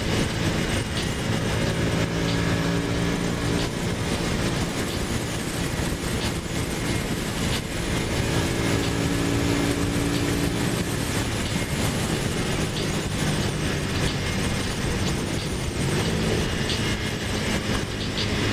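Ducati motorcycle engine running steadily at cruising speed, with heavy wind rush over the microphone; the engine note rises near the end as the rider opens the throttle.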